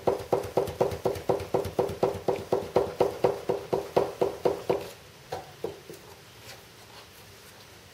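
Freshly cut fibreglass aileron being flapped rapidly back and forth on its Kevlar hinge, an even run of about five knocks a second. It stops about five seconds in, leaving a few scattered clicks.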